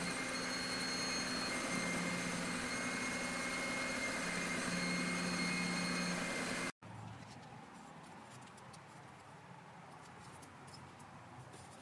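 A shop machine's motor running with a steady hum. About seven seconds in it cuts off abruptly, leaving faint room tone with a few light ticks.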